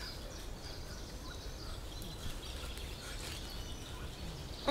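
Faint outdoor background noise with a few faint, high bird chirps.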